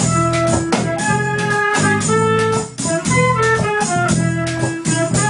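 Instrumental folk music: a melody of held notes moving over a steady low drone, with a regular beat under it.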